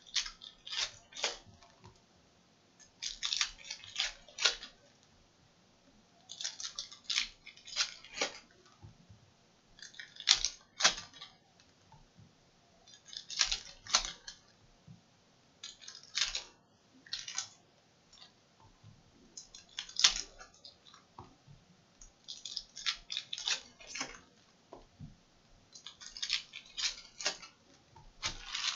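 Trading cards being handled and tapped down onto a stack on a table: clusters of quick clicks and rustles, about every three seconds.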